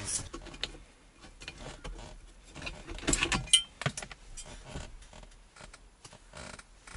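Scattered light clicks, taps and rattles of hands handling fittings at a car's dashboard, with a cluster of louder knocks about three seconds in.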